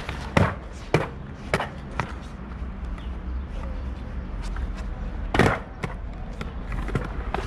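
Freestyle skateboard on stone plaza tiles: a steady low rolling rumble from the wheels, broken by sharp knocks of the deck and wheels striking the tiles. Four knocks come in the first two seconds, and a louder one comes about five and a half seconds in.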